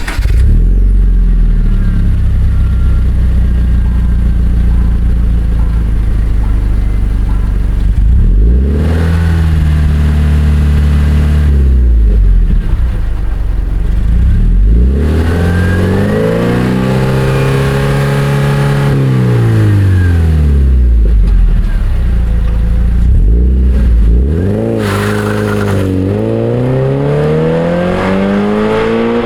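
Subaru BRZ / Scion FR-S 2.0-litre flat-four engine idling and being revved through an Invidia Q300 cat-back exhaust. There are a few short blips, then one long rev up and back down, then a steady climb in revs near the end.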